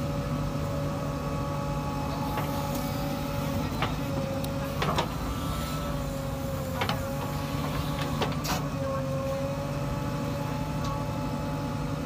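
JCB 3DX backhoe loader's diesel engine running steadily under working load, with a steady whine that wavers in pitch a few times. Several sharp clanks sound as the backhoe bucket digs into the soil.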